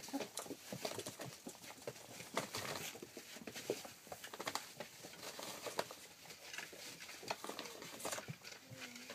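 Rough collie puppies, about a month old, running and wrestling: a busy patter and scrabble of small paws on the sheet-lined floor, with a brief puppy squeak or whine near the end.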